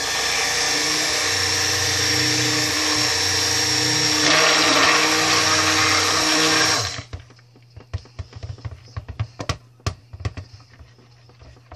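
Immersion stick blender running in a bowl of oils and lye solution, mixing cold-process soap batter: a steady motor whine that gets louder about four seconds in and stops after about seven seconds. Light clicks and taps follow.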